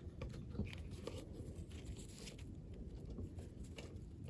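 Low, steady wind rumble on the microphone, with scattered faint clicks and rustles throughout.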